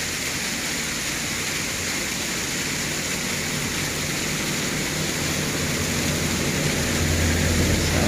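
Cars and SUVs driving past on an asphalt road, their engine and tyre noise growing louder toward the end as vehicles come close, over a steady rushing hiss.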